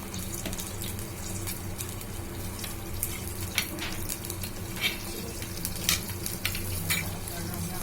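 Boiled mutton chops with onion, garlic, ginger and ground spices sizzling in hot oil in a pan, a steady hiss dotted with short crackles and pops.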